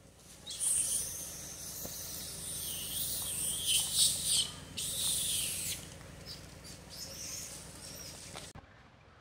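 Newborn long-tailed macaque screaming in distress at being pulled from its mother: shrill, high-pitched calls from about half a second in, breaking off briefly twice. Fainter squeaks follow, then the sound cuts off abruptly near the end.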